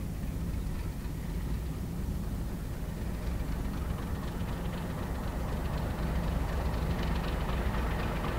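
Two NSW 48 class Alco diesel-electric locomotives with six-cylinder engines, running at low speed: a steady low engine drone that grows a little louder toward the end as they come closer.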